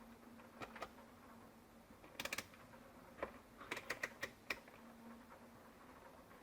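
Light clicks and taps of small parts and tools being handled on a workbench, some single and some in quick clusters, over a faint steady hum.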